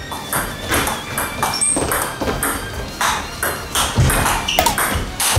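Table tennis rally: the ball clicking off the rackets and bouncing on the table in a quick, even run of sharp taps, two or three a second.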